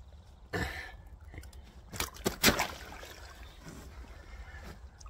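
A large common carp thrashing as it is held in shallow lake water, its body and tail splashing and slapping the water in a short burst about half a second in and a quick cluster around two seconds in.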